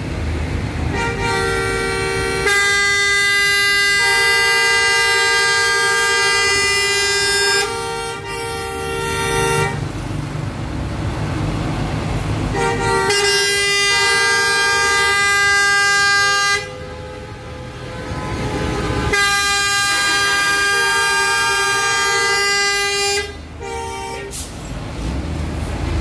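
Bus horns sounding long held chords of two notes, three times: a blast of several seconds near the start, then two shorter ones, over the low running of idling bus engines.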